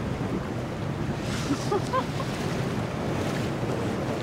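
Wind buffeting the microphone over the steady wash of sea waves, with a few faint, brief pitched sounds about halfway through.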